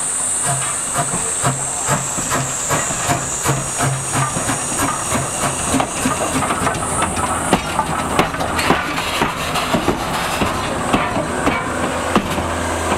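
C12 tank locomotive running on compressed air instead of steam, working along the track past the listener: rhythmic exhaust chuffs about two to three a second over a steady high hiss, which stops about halfway through while the chuffing carries on.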